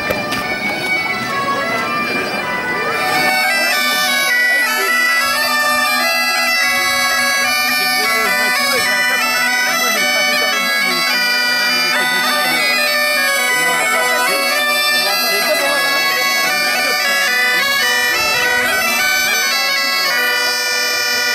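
Two bagpipes playing a tune together over a steady drone. The low drone comes in clearly about three seconds in.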